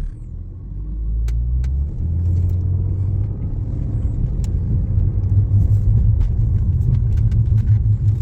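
BMW E46 330i's 3.0-litre straight-six engine running as the car is driven, without misfire. Its low hum steps up in pitch about two seconds in and then rises slowly, with a few light clicks over it.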